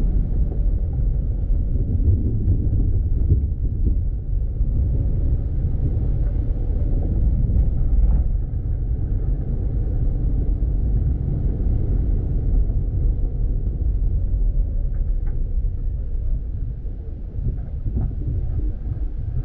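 Steady low rumble of a car driving along a dirt road, road and engine noise, with a few faint clicks and knocks.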